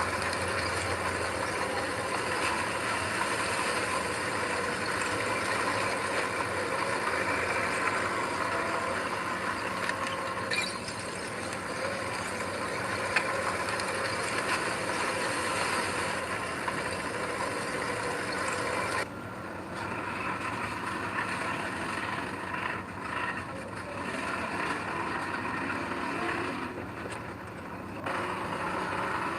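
Heavy earthmoving machinery, a bulldozer or dump truck, with its diesel engine running steadily. The sound drops and changes abruptly about two-thirds of the way through.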